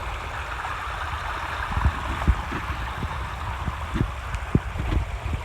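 Water of a backyard pondless waterfall and stream running steadily over rocks, with low, irregular buffeting on the microphone.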